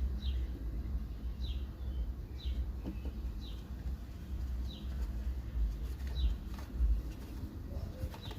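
A small bird chirping over and over, a short falling note about once a second, over a steady low rumble.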